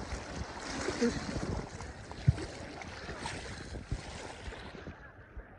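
Wind blowing across a phone's microphone as a steady rushing noise, with a couple of sharp low thumps from gusts, the loudest about two seconds in.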